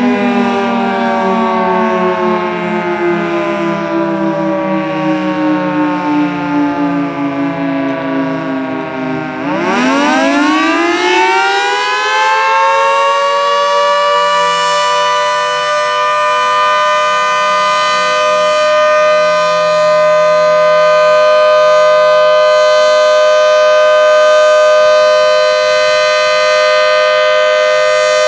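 Federal Signal 2T22B dual-tone outdoor warning siren sounding a wail, its two-note chord sliding slowly down in pitch. About ten seconds in it winds quickly back up and holds steady at full pitch, then starts to drop again at the very end.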